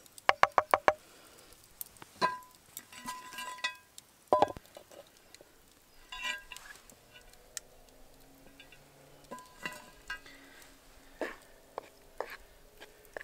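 Metal utensils clinking and tapping: a fork rapped about six times in quick succession against a bowl, then scattered single clinks and knocks, some ringing briefly, as a cast iron skillet and a spoon are handled.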